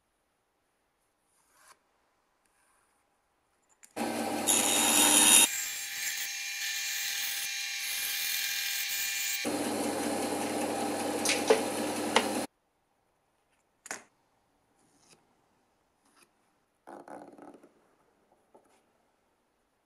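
Benchtop bandsaw running and cutting a softwood board along a curve, loud for about eight seconds with abrupt shifts in tone, then cutting off suddenly. After it come a few light clicks and scratches of steel dividers marking the wood.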